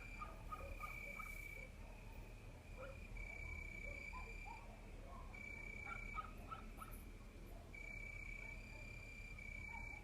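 Crickets trilling in repeated bursts of about a second each, with short, faint chirps from other animals underneath.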